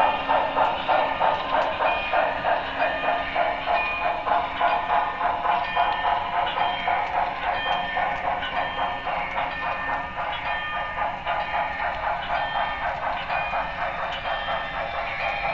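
Sound system of a Broadway Limited Paragon 3 HO-scale 2-10-4 steam locomotive model playing steady steam exhaust chuffs, about three a second, getting a little quieter about two-thirds through.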